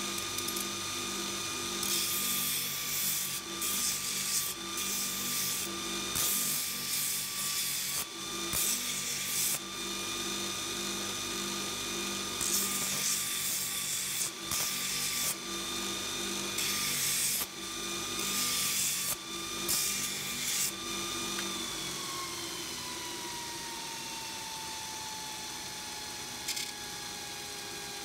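Belt grinder running with a steady motor tone, as a steel horseshoe is pressed to the abrasive belt in about ten short grinding passes. After about 21 s the grinding stops and the motor tone sinks steadily as the grinder spins down.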